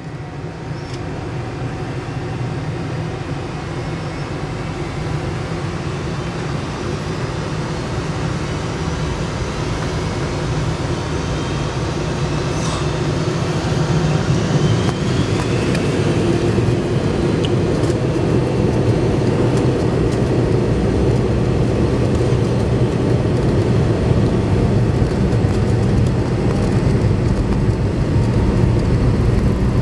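Cabin noise inside a McDonnell Douglas MD-90-30 airliner: the steady low hum of its rear-mounted IAE V2500 turbofans grows louder about halfway through as thrust comes up for the takeoff roll. A faint rising whine sets in near the end.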